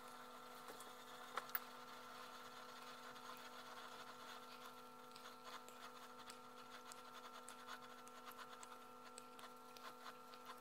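Faint rubbing and light ticking of a cloth being worked over a hand-carved wooden pen barrel, with two sharper clicks about a second and a half in, over a steady hum.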